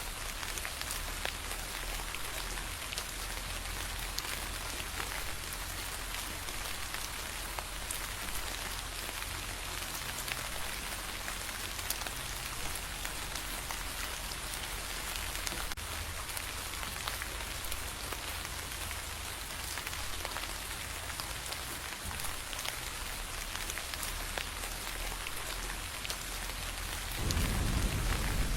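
Steady rain falling on a surface, with many separate drops pattering. Near the end a low rumble of thunder begins to build.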